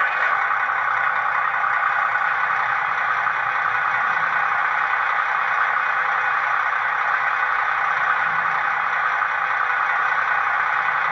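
Steady hiss from the sound decoder of a stationary model railway MPV, played through its small megabass speaker.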